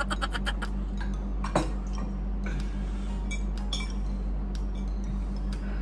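A laugh trails off at the start, then a metal fork clinks and scrapes on a ceramic plate in a few scattered light clicks.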